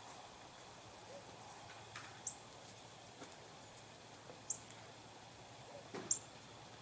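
Faint background hiss with three short, high bird chirps about two seconds apart.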